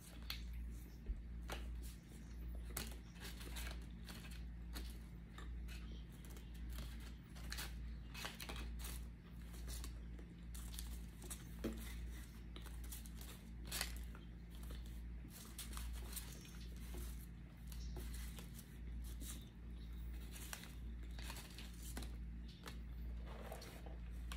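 Food packaging crinkling and tearing, with scattered small clicks and taps, over a steady low hum.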